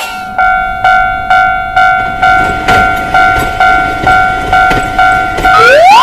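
Japanese railroad crossing bell ringing its 'kan-kan' alarm, about twice a second, over a low rumble. Near the end a quick rising whistle-like glide sounds before everything cuts off.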